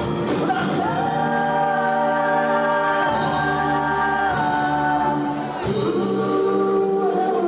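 Live rock band playing, with several voices singing long, held notes in harmony; the chord changes every second or two.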